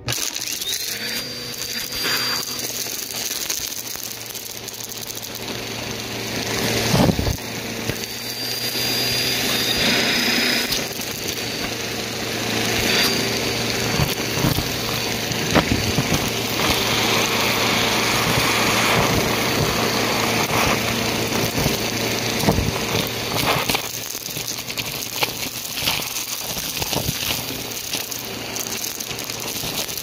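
Vacuum cleaner motor switching on, its whine rising to a steady pitch within the first second, then running steadily. Through the crevice tool comes a crackling, rattling stream of lint, tinsel, confetti and small plastic bits being sucked up, busiest in the middle, with several sharper knocks of harder pieces hitting the tube.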